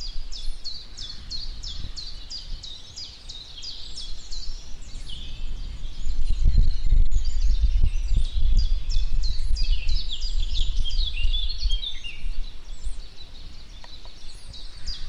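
A songbird singing long runs of short, quick, falling notes, about four a second, in bouts with brief breaks, over a low outdoor rumble that swells in the middle.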